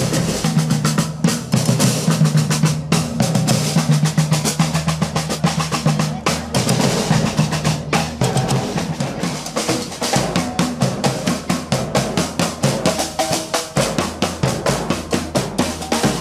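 Street percussion band of large bass drums and snare drums playing a fast, steady marching rhythm with snare rolls.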